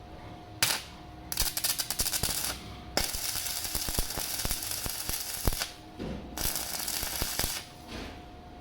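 Electric arc welding crackling in four bursts: a brief strike under a second in, then three longer welds of one to nearly three seconds each, with short pauses between them.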